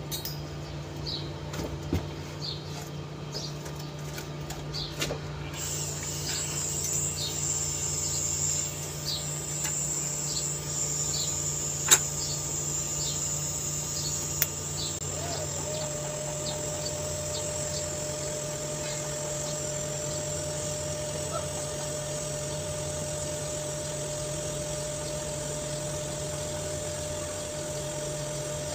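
Steady site hum with faint repeated chirps, two sharp clicks around twelve and fourteen seconds in, then a TIG welding arc on 3-inch stainless pipe running the root pass with a steady, even tone from about halfway on.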